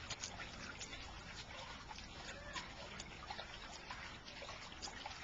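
Small fountain pump running in a bucket, its spray falling back into the water in a steady, faint trickling and splashing.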